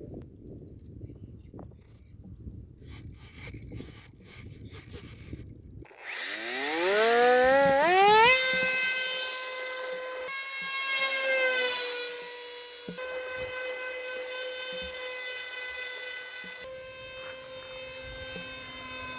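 Small electric motor of an RC plane spinning up: a whine that rises steeply in pitch about six seconds in, then runs steady at high speed, with slight changes of throttle.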